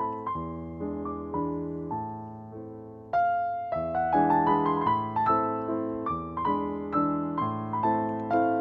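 Background piano music, a run of struck notes and chords that dies down and picks up again about three seconds in.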